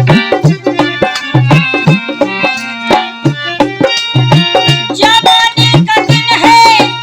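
Folk ghazal music: hand drums keep a quick rhythm, with low bending bass strokes, under a sustained melody line.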